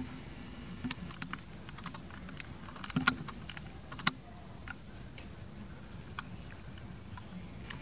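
Scattered light clicks and taps, with a small cluster about three seconds in and a sharper click about a second later.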